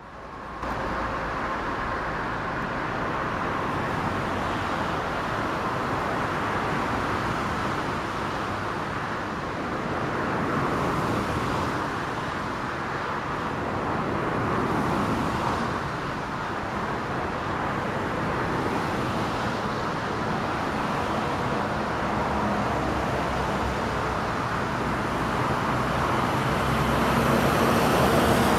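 Steady engine noise from airport ground traffic and jets, fading in at the start and growing a little louder near the end.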